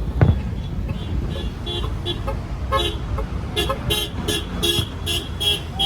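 A vehicle horn tooting in rapid, evenly repeated blasts, about three a second, from about halfway in, over a steady low rumble. A sharp knock comes just after the start.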